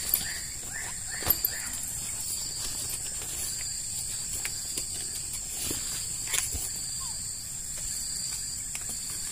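Steady high-pitched chorus of crickets and other insects, with a few light knocks and clicks from a bamboo tube being handled.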